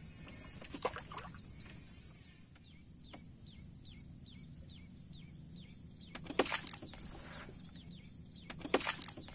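Rustling and knocks of the camera being handled and repositioned, loudest about six and nine seconds in. Between them a bird repeats a short falling note about three times a second.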